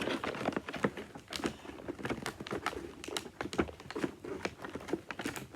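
Packaging being handled and worked at to open a box: irregular crinkling and rustling with many small sharp clicks and crackles.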